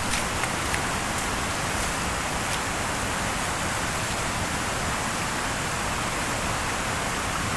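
Steady rush of a mountain stream cascading over rocks: an even, unbroken wash of water noise.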